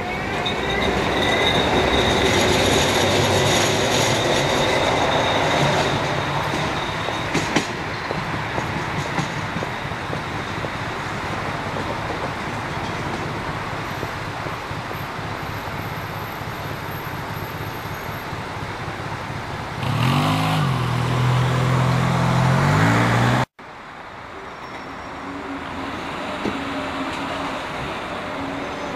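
Breda tram running on street track, its steel wheels squealing high on the rails in the first seconds over a steady rumble. About twenty seconds in, a low motor hum rises and falls in pitch. Then the sound cuts abruptly to quieter, steady street traffic.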